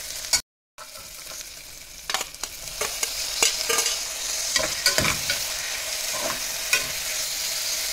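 Onions, mint leaves and chopped tomatoes sizzling in hot oil and ghee in a pressure cooker, stirred with a steel spoon that clicks and scrapes against the pot. The tomato pieces are tipped in from a bowl partway through.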